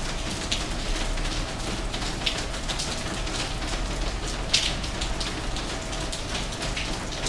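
Steady patter of light rain, with a few faint sharp ticks scattered through it.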